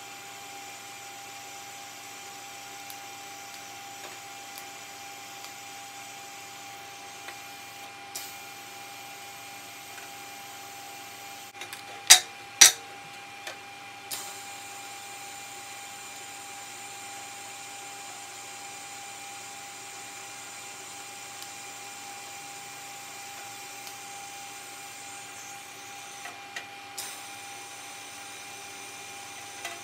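TIG welding arc on thin sheet metal, heard as a steady hiss with a high whine that shifts a few times. Two sharp knocks about twelve seconds in are the loudest sounds.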